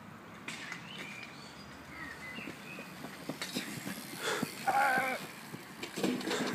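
Open-air background noise with scattered faint knocks. About five seconds in comes a short high-pitched cry, and near the end a clatter as a riderless BMX bike tips over onto the ground.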